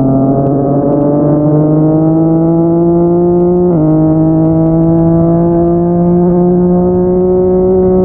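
Yamaha MT-09's inline-three engine through a Yoshimura R55 slip-on exhaust, pulling under steady acceleration. Its pitch climbs slowly, dips sharply at an upshift about halfway through, then climbs again.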